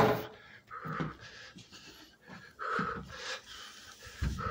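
A man's heavy, wheezy breathing close to the microphone, several breaths in a row, with a knock of handling at the start and a low bump near the end.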